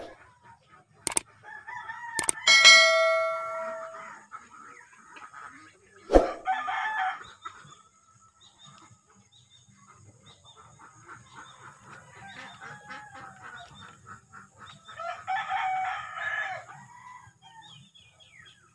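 Roosters crowing, the loudest crow about two and a half seconds in and fainter ones later, with clucking in between. A few sharp clicks stand out, the loudest about six seconds in.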